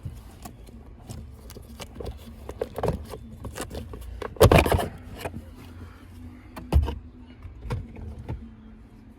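Scattered clicks, taps and knocks of hands and tools working on a car's steering column covers and bolts, with a louder scraping rustle about four and a half seconds in and a sharp knock near seven seconds.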